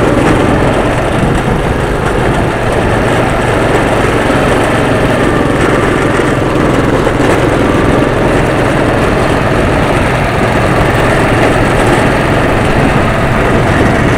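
Go-kart's small engine running steadily at speed, heard loud from on board the kart as it laps the track.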